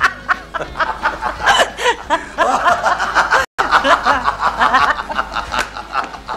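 Several people laughing and snickering, broken by a moment of silence about halfway through.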